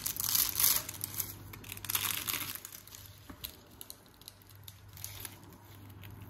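Crisp baked filo pastry crackling and crunching as a spatula breaks through and lifts a portion. The crackling is densest in the first couple of seconds and thins out towards the end.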